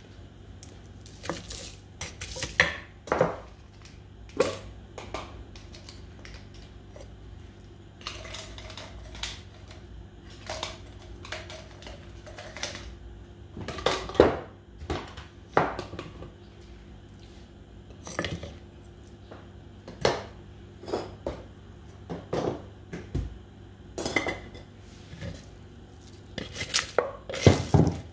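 Irregular clinks and knocks of a spoon and kitchenware against a wooden mortar (khok) as ingredients are put in. Near the end a wooden pestle starts pounding in the mortar, about three strokes a second.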